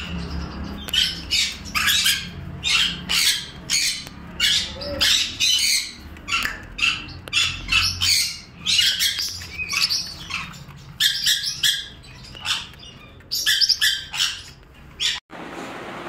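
Pacific parrotlets chirping: a quick string of short, high chirps, about two a second, that breaks off near the end and gives way to a steady hiss.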